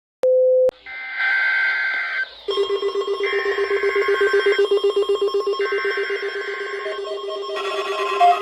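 Emergency-alert SAME header: three roughly one-second bursts of warbling two-tone data with short pauses between them, the digital code that opens a required weekly test. A short beep comes just before them, and a rapidly pulsing electronic tone runs beneath from about two and a half seconds in.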